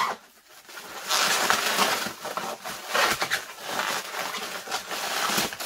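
Plastic bubble wrap crinkling and rustling in uneven surges as it is handled and the wrapped box is turned over.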